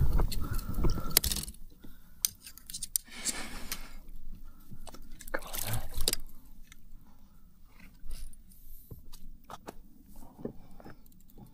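Handling noises in a fishing kayak as a freshly landed cobia and the tackle are dealt with: scattered knocks, scrapes and light clinks. They are busiest in the first second or so, come again briefly about three and six seconds in, and then thin out to occasional small clicks.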